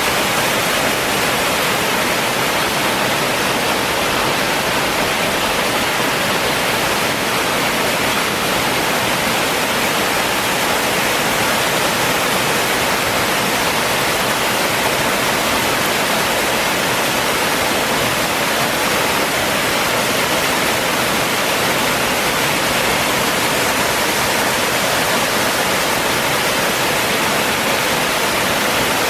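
Narrow waterfall plunging into a rock pool, a steady, even rush of falling water.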